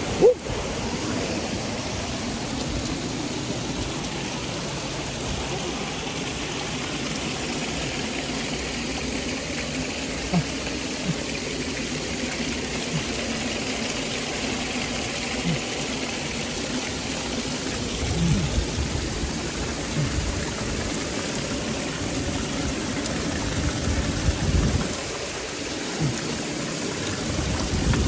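Waterfall water rushing steadily, with a few soft low thumps scattered through.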